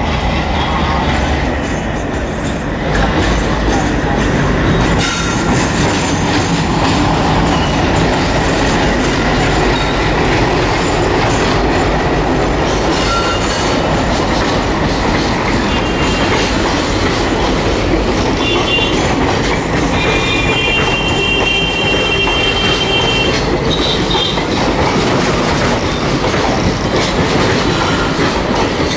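A WDM-3A diesel-electric locomotive passes close by with its engine running. A long rake of passenger coaches follows, rolling through the station trackwork with wheels clattering over rail joints and points. There are short high-pitched wheel squeals at times, clearest about two-thirds of the way through.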